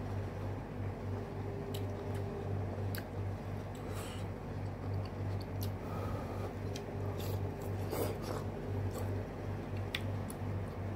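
Close-up eating sounds: a person chewing dumplings, with scattered soft clicks and smacks from mouth and chopsticks, over a steady low hum.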